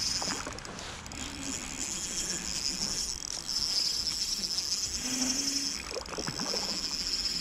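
Spinning reel being cranked to retrieve a hooked trout, a steady high whir from the reel's gearing that pauses briefly a few times.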